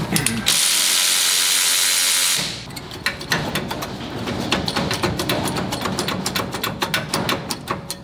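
Cordless power tool running a rear brake caliper bolt out, with a brief stop near the start, then running on for about two seconds before cutting off. After that come rapid light metallic clicks and clinks as the loosened caliper hardware is handled.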